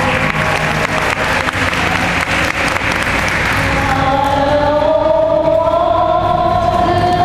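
Audience applauding. About four seconds in, a long held tone with several overtones starts over the clapping and slowly rises in pitch.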